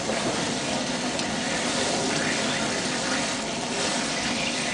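Steady hiss of crêpes Suzette being flambéed: the liqueur flames burning and the sauce sizzling in a pan over a tableside gas burner.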